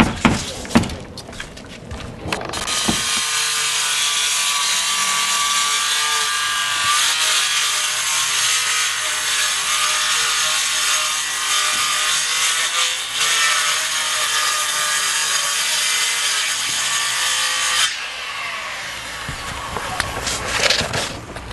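Handheld electric circular saw cutting a long slot through the felt-covered wooden roof deck. It runs up about two and a half seconds in, cuts steadily under load with a wavering whine, and stops about eighteen seconds in.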